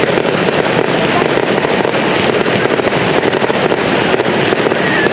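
Aerial fireworks bursting, a dense and steady crackle of many small pops packed closely together.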